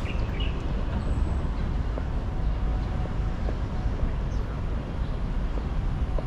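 Outdoor city ambience: a steady low rumble, with a few faint bird chirps right at the start.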